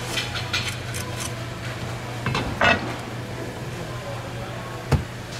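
A large knife scraping and slicing along a mahi mahi's backbone on a wooden cutting board as the fillet is cut free: a few short strokes, then a longer, louder rasp about halfway through. A single sharp knock on the board comes near the end, over a steady low hum.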